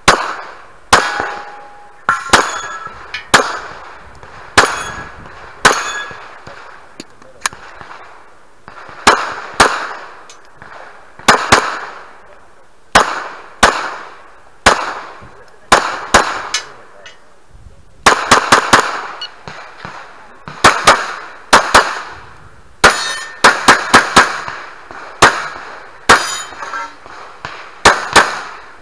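Glock pistol firing repeated strings of shots, mostly in quick pairs about a quarter second apart, with faster clusters of three or four. Some hits are followed by a short metallic ring from steel targets.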